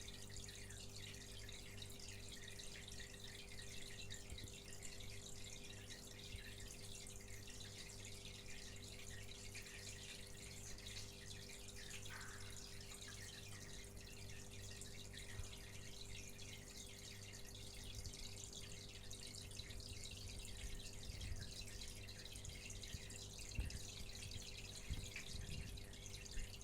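Aquarium filter running: a faint steady hum with water trickling and dripping, and a few soft clicks near the end.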